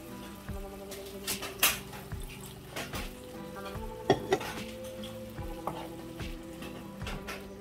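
Onion curry sauce sizzling in a nonstick wok while a wooden spatula stirs it, scraping and knocking against the pan several times. The loudest strokes come about one and a half seconds in and again about four seconds in.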